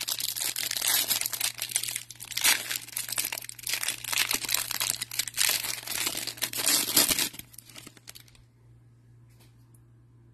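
Crinkling and tearing of the clear plastic wrapper around a stack of trading cards as it is worked open and pulled off, ending about eight seconds in.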